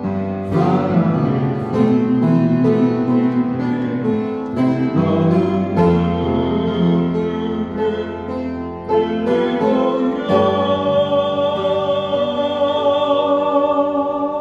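A man singing a Korean praise song while accompanying himself on an upright piano. About ten seconds in, the voice holds a long note over held piano chords.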